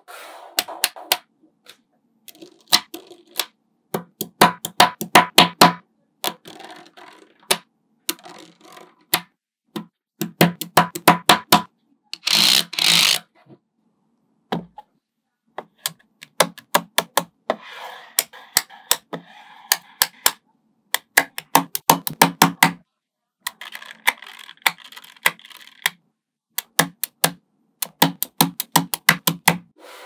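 Small magnetic balls snapping together in quick runs of sharp clicks as rows and blocks of them are pressed into place, with short stretches of rattling between the runs. A brief louder scrape comes about twelve seconds in.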